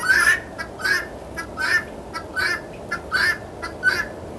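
Guinea fowl calling: a rapid run of harsh, repeated squawks, about two to three a second, that stops near the end.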